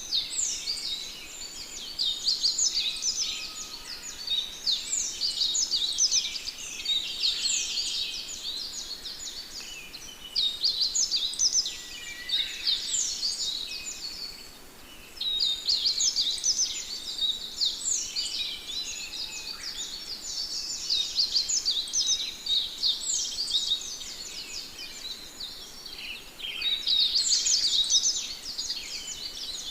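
A flock of small birds chirping and twittering together, dense overlapping quick high chirps that swell and ease in spells, with a brief lull around the middle.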